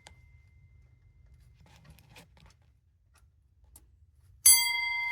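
A bell called a breakfast bell: an earlier ring fades out, and about four and a half seconds in it is struck again loudly and rings on, slowly dying away.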